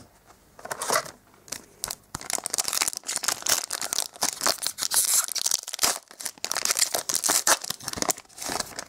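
Metallic foil trading-card booster-pack wrapper being torn open and crinkled by hand, a dense run of sharp crackling rips. Near the end it crinkles as the cards are pulled out.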